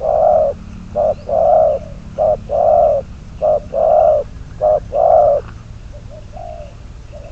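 Spotted dove cooing: a short note followed by a longer one, repeated in pairs about five times, stopping about five and a half seconds in, with a fainter call near the end.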